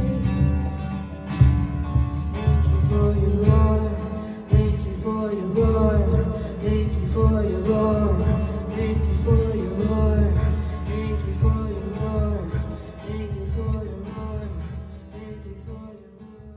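Music: a song with singing over strummed acoustic guitar, fading out over the last few seconds.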